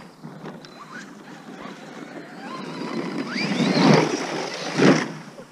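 Electric motor of a hobby-grade RC monster truck whining as it drives across snow, its pitch rising as it speeds up a few seconds in. Two louder bursts of noise follow around four and five seconds in.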